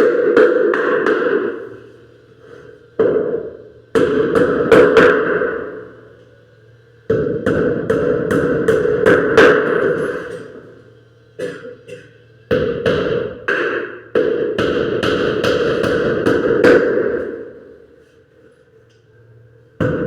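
Hammer blows on wood in quick runs of knocks, several a second, each run ringing on for a couple of seconds before the next.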